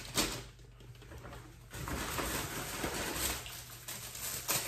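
Plastic grocery packaging and a carrier bag rustling and crinkling as shopping is lifted out and handled, starting with a single sharp knock and turning into a dense crackle of plastic from about two seconds in.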